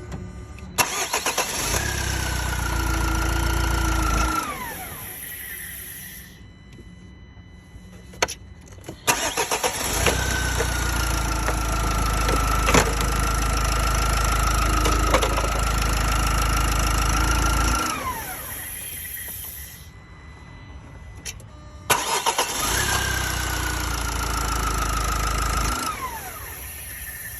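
Renault M9R 2.0 dCi diesel engine making the strange noise the owner is showing: three spells of a few seconds each, each starting with a click, a deep rumble under a steady high whine that slides down quickly as each spell cuts off.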